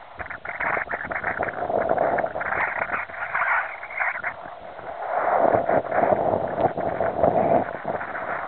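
Lake waves splashing and lapping against shoreline rocks, mixed with wind gusting on the microphone. The sound swells louder about five seconds in.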